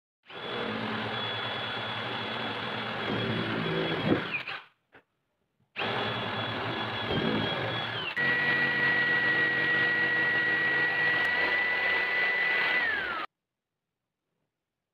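Electric drill boring into wood with a small twist bit, in two runs with a steady high motor whine. About eight seconds in the whine drops to a lower pitch and the sound grows louder, then it winds down and stops near the end.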